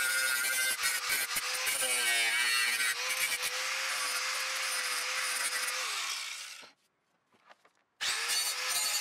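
Electric angle grinder running with a steady motor whine, its disc grinding rusty steel. The motor pitch wavers under load about two seconds in. Near six seconds the sound fades away to about a second of near silence, then the grinder starts up again near the end.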